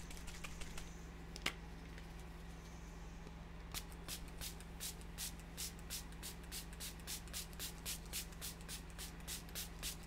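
Small plastic fine-mist spray bottle being pumped over and over, a quick hiss of mist about three times a second, starting about four seconds in. There is a single click shortly before.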